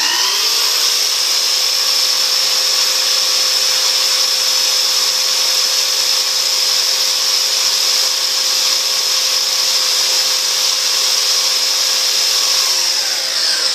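Festool Kapex miter saw motor reaches full speed at the end of its soft-start ramp and runs steadily with its high whine, together with the Festool CT36 dust extractor switched on through it. Near the end the trigger is released and the saw's whine falls as it spins down.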